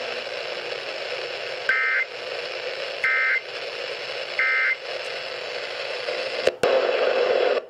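Three short, identical electronic data-tone bursts about 1.3 seconds apart, played through a Reecom weather radio's speaker over steady radio hiss: the Emergency Alert System end-of-message code that closes the severe thunderstorm warning. About six and a half seconds in, two clicks of a button on the radio are followed by a louder rush of hiss that cuts off at the end.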